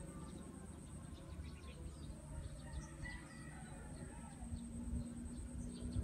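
Rural outdoor ambience: a rooster crowing, with small birds chirping briefly and often throughout.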